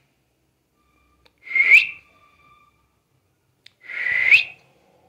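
A person whistling to call a dog: two short whistles about two and a half seconds apart, each held on one note and then rising at the end.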